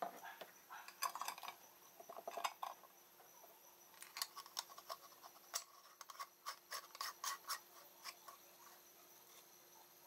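Aluminium moka pot's top chamber being screwed onto its coffee-filled base: metal threads scraping, then a quick run of short clicks and scrapes as it is turned tight.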